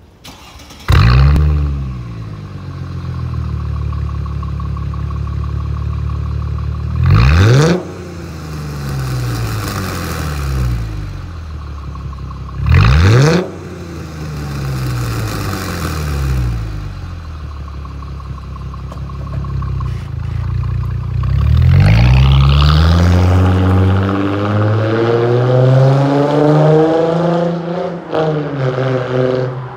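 Mercedes-Benz SL (R230) engine through an all-titanium exhaust. It starts with a sudden loud flare about a second in and settles to a steady idle, is blipped twice in short sharp revs, then near the end pulls away accelerating, its pitch climbing with a dip at a gearshift.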